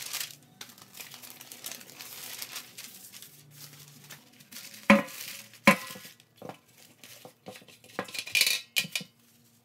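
Newspaper rustling and crinkling as sheets are handled and spread flat on a concrete floor. About five seconds in come two sharp clanks, the loudest sounds, a second apart. They are followed by scattered knocks and more paper crinkling near the end.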